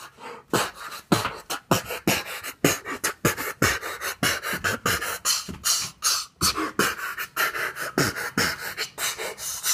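A person beatboxing a quick, steady beat: deep kick sounds that drop in pitch under sharp, hissy snare and hi-hat sounds.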